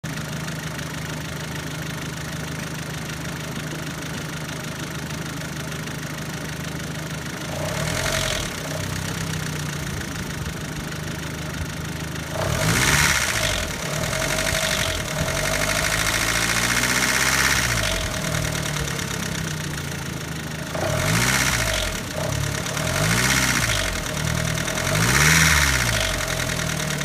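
Mazda B6 four-cylinder engine, stroked to 2.0 litres, idling steadily for about seven seconds, then revved up and let fall back repeatedly, with several quick blips near the end. The engine has a ticking noise whose cause is not known.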